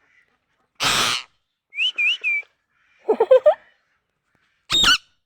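Pet parrot calling in short separate bursts: a harsh screech about a second in, then a wavering whistle, a quick run of chattering syllables a little after three seconds, and a short shrill call near the end.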